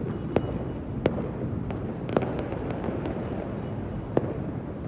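Fireworks going off across a city: a continuous low rumble of many far-off explosions, with sharp bangs every half second or so and a quick run of pops a little after two seconds in.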